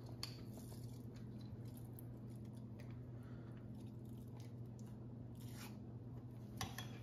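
Faint squishing and small scattered clicks of a marinade injector being pushed into a raw turkey breast and handled, over a steady low hum.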